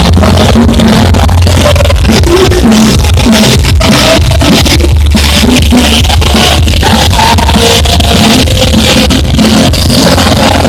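Live band music played loud, with a strong, steady bass and a regular drum beat under the other instruments.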